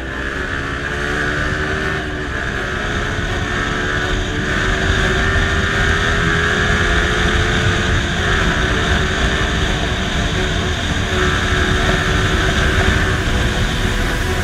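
Yamaha MT-15's 155 cc single-cylinder engine running under way, its pitch climbing and then dropping sharply twice, about two seconds in and again about eight seconds in.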